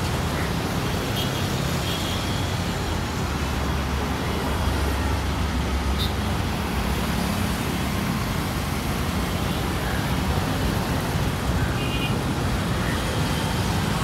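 Steady road traffic: cars and motorbikes passing close by with a continuous low rumble.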